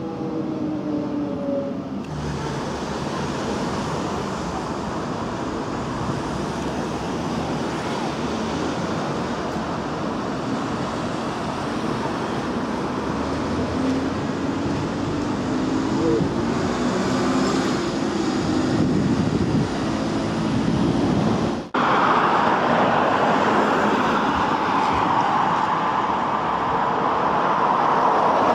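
A train slowing, its motor tone falling, gives way to steady road traffic noise with a bus engine passing. About two-thirds of the way through, the sound cuts off suddenly and switches to a different steady rushing noise.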